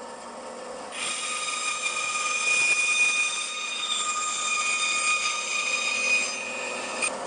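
Bandsaw running, then from about a second in, a steady high-pitched whine with a squeal as the blade cuts the waste from a tenon on an oblique. The whine stops shortly before the end.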